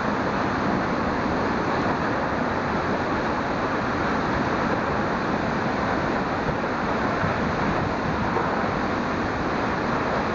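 Flash-flood water rushing and pouring down a canyon: a steady, loud rush with no breaks.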